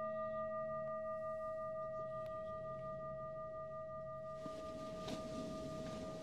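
Himalayan singing bowl ringing on after a strike: a steady tone with higher overtones, one of them pulsing, slowly fading. About four seconds in, a soft rushing noise rises beneath it.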